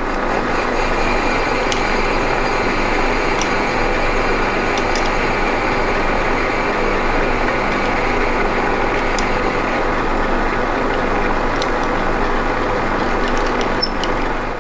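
Manual metal lathe running steadily while a cutting tool faces the end of a small turned spacer, with a few faint ticks over the machine noise.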